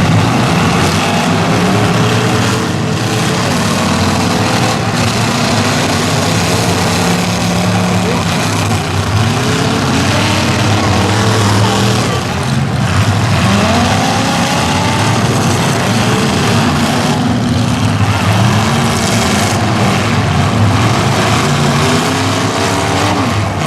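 Several demolition derby cars' engines revving hard through loud exhausts, their pitch repeatedly climbing and dropping as they accelerate and reverse, with a few sharp crash impacts mixed in.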